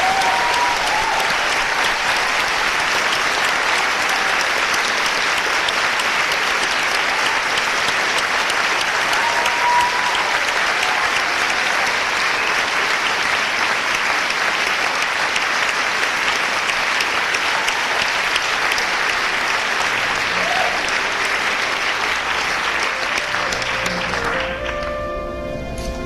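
Theatre audience applauding steadily, with a few shouts, after a song. Near the end the applause dies down and quiet instrumental music comes in.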